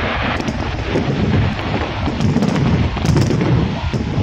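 Large aerial fireworks display going off in a dense barrage: overlapping booms with sharp crackles and pops on top.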